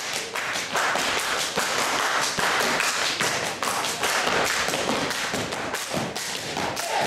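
Hungarian men's folk dance: several dancers in boots stamping and slapping in a fast rhythm, a dense run of sharp slaps and heavy steps on a wooden parquet floor.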